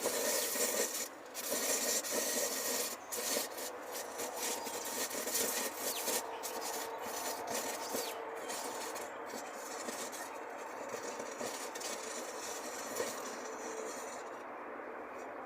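Burning battery hissing and sputtering: a harsh hiss starts suddenly, broken by many short crackling spurts, then settles after about nine seconds into a steadier, weaker hiss that fades near the end.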